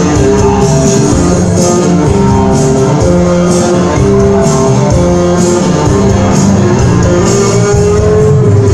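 Loud guitar-led dance music played over a party DJ sound system, with a steady beat.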